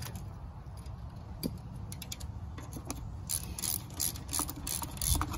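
Socket ratchet wrench clicking as it turns the nuts on a sickle bar mower's cutter bar: a few scattered clicks at first, then quick runs of ratcheting from a little past halfway.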